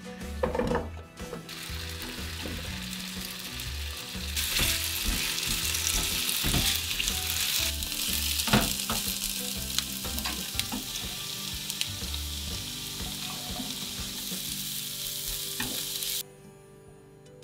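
Diced potatoes and onion sizzling in olive oil in a nonstick frying pan, stirred with a spatula that knocks against the pan now and then. The sizzle gets louder about four seconds in and cuts off suddenly near the end.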